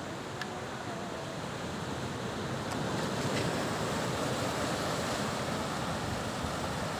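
Sea surf washing and breaking over a rocky reef shore, a steady rushing wash that grows louder about three seconds in.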